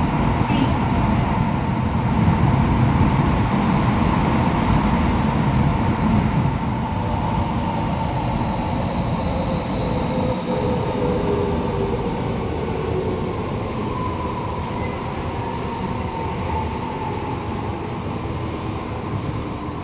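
Kyoto Subway Tozai Line train heard from inside the car, running through a tunnel and slowing into a station. A steady rumble of wheels and running gear carries a faint whine that falls in pitch as the train brakes, and the noise eases off toward the end.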